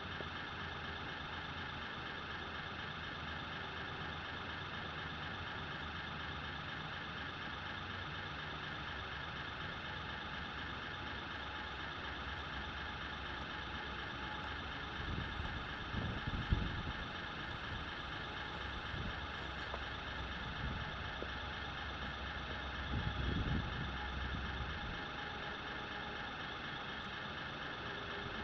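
Steady truck-diesel idle from a radio-controlled model's electronic sound module, played through its small speaker, with a couple of brief low rumbles about halfway through and again near the end.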